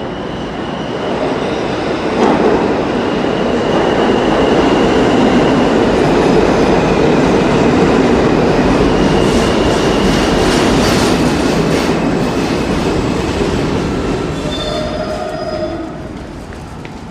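R46 subway train running on the track, a loud rumble with the high squeal of steel wheels on rail. The noise swells about two seconds in and eases off near the end.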